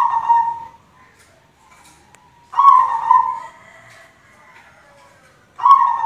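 White zebra dove (perkutut) cooing its song in short phrases: three phrases about three seconds apart, each under a second long, the last one starting just before the end.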